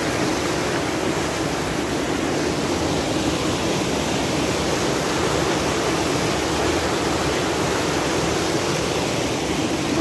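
Water rushing steadily over a small rocky waterfall, heard at close range as an unbroken rush of whitewater.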